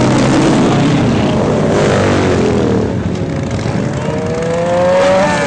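Motorcycle engines revving loud: the pitch sinks over the first second or so, then climbs steadily through the second half and drops away sharply at the end as the throttle is let off.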